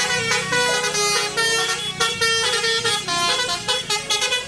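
Telolet bus horn, a multi-tone musical horn, playing a quick run of changing notes over a low steady hum.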